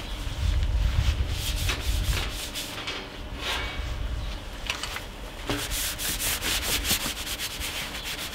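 Household paper towel rubbed back and forth over a perforated PC case panel, wiping off dust in quick scratchy strokes that come faster and more evenly in the second half.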